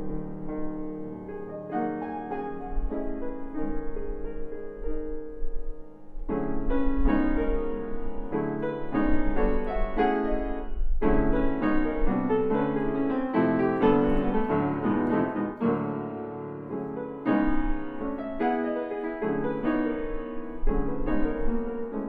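Chickering 109C grand piano, built 1897 and keeping its original recrowned soundboard, being played: a piece of chords and melody. The playing eases almost to a stop about six seconds in, then resumes in a fuller, louder passage.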